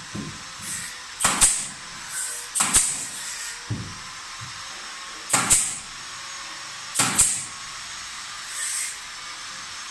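Carpentry tool work: sharp knocks or clicks, mostly in close pairs, four times over the stretch with a softer one near the end, over a steady faint hiss.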